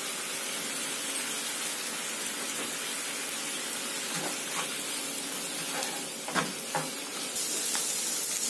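Mushrooms sizzling steadily in a pan as the liquid they released cooks off, with a few light taps of a spoon against the pan in the second half.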